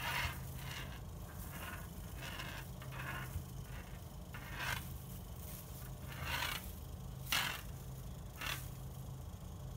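Short scratchy scrapes against a glass door pane, about nine irregular strokes each lasting a fraction of a second, over a steady low hum.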